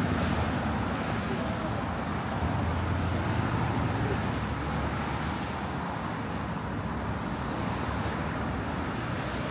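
Road traffic noise: a steady low rumble of vehicles, with indistinct voices.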